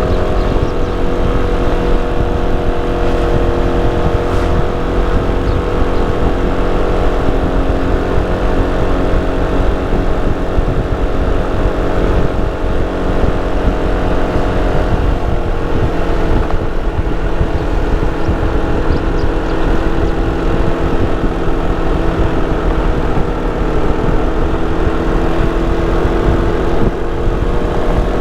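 Sym Cruisym 300 scooter's single-cylinder engine and stock exhaust running steadily on the move, the engine note dropping slightly about halfway through.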